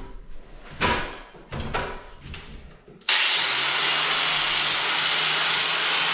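A few knocks and clatter, then about three seconds in a handheld power tool starts abruptly and runs steadily with a loud hiss over a low hum as it abrades old paint off the stonework around a window.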